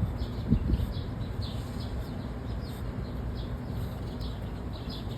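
Small birds chirping over and over in short, quick falling notes, over a steady low background rumble, with a couple of soft low thumps about half a second in.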